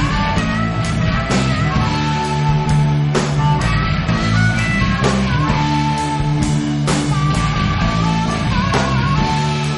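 Rock music with guitars and a steady beat, in an instrumental stretch between sung lines.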